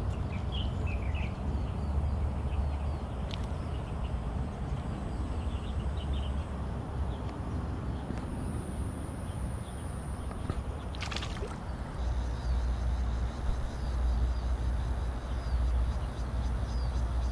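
Open-air riverside ambience: a steady low rumble with a few faint high bird chirps, and one brief sharp handling sound about eleven seconds in.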